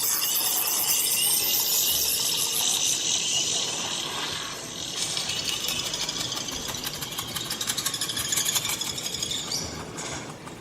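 Dolby surround demo video playing from Samsung Galaxy Note 9 phone speakers: dense, shimmering, scraping sound effects with no speech. They get quieter near the end.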